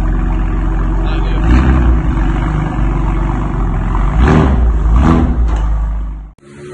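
BMW S55 twin-turbo inline-six, fitted with an aftermarket exhaust, idling and blipped three times: a small rev about a second and a half in, then two sharp rev blips about a second apart. The sound cuts off abruptly near the end.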